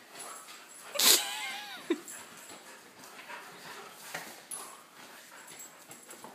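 A dog gives one loud bark about a second in that runs into a short, wavering whine. Throughout, there is a light scatter of dogs' feet and claws scrambling on a hardwood floor as they play chase.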